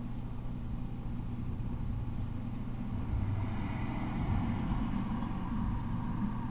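Steady low engine hum of a vehicle, growing louder about three seconds in.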